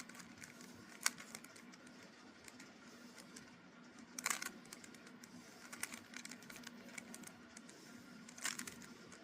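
Plastic clicks and clatters of a Rubik's Cube's layers being turned, in short clusters about a second in, around four seconds in, and near the end, over a faint steady hum.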